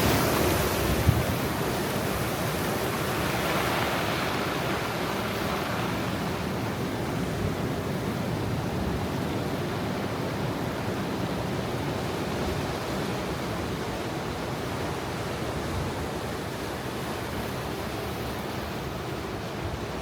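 Ocean surf at high tide: a wave washes in near the start and again a few seconds later, then the surge slowly eases to a steady wash of water.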